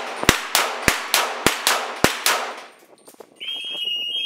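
Rapid pistol fire at steel falling plates: four shots about half a second apart, each followed by the ringing clang of a struck plate. Then a steady high beep about a second long, from about three and a half seconds in.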